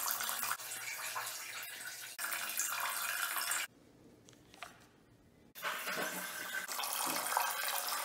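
A stream of urine splashing into the water of a toilet bowl, stopping abruptly about three and a half seconds in. After a near-silent gap with a single click, a steady rush of water resumes.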